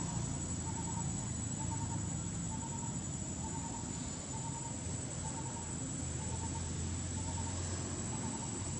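Outdoor insect ambience: a steady high-pitched insect drone, with a short chirp repeating a little more than once a second over a low rumble.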